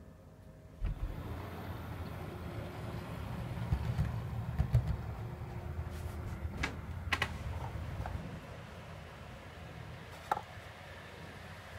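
Model Class 66 diesel locomotive pulling away from a standstill about a second in, then running along the track with a steady low rumble that fades after about eight seconds. A few sharp clicks sound over it.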